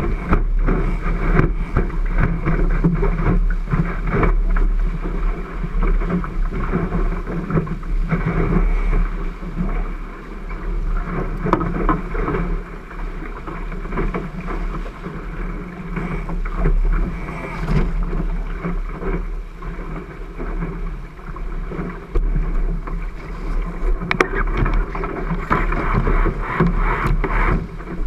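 Water rushing and splashing along the hull of a 12-foot Cherub skiff sailing fast downwind, surging and easing as the boat moves through the chop, with a steady low wind rumble on the camera microphone and a few knocks near the end.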